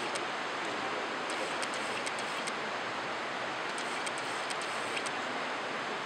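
Steady rush of flowing water: a small stream running over rocks into a pool, an even noise that holds at one level throughout.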